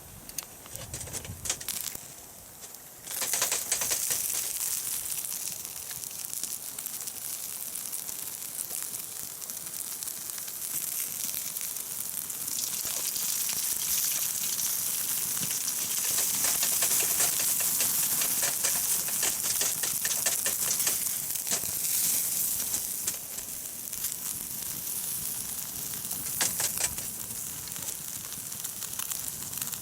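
Jidori chicken thigh sizzling and crackling over a hot charcoal fire: a steady hiss thick with crackles. It starts suddenly about three seconds in and grows louder midway.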